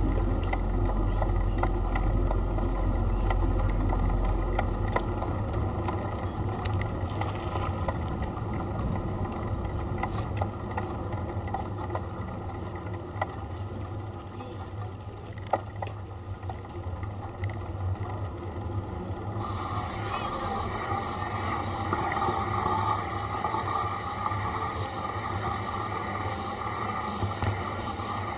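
Wind buffeting the microphone of a camera riding on a moving bicycle, over the hum of tyres on tarmac, with scattered clicks and knocks from the bike. The low wind rumble is heavy for the first five seconds or so, then eases.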